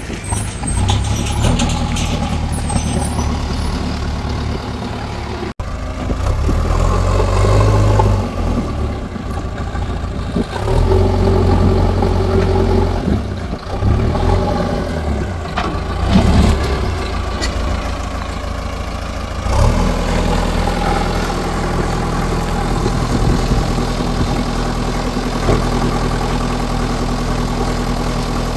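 A JCB backhoe loader's diesel engine working on earthwork, its revs rising and falling as the load changes. It settles into a steadier run about two-thirds of the way through. There is a brief dropout about five seconds in.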